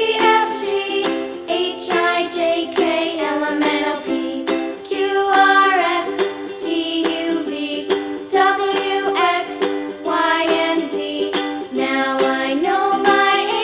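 Background music: a tune with plucked-string notes under a melody line.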